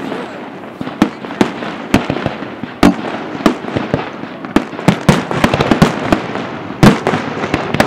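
Aerial firework shells bursting in a display: a string of sharp bangs, sparse at first and coming thick and fast from about halfway, with single loud reports about three seconds in and near the end.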